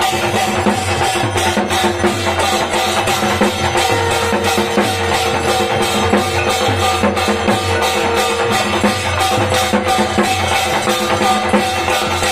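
Steady, loud rhythmic drumming with metallic ringing: the percussion that accompanies an arati. A held ringing tone joins for about four seconds in the middle.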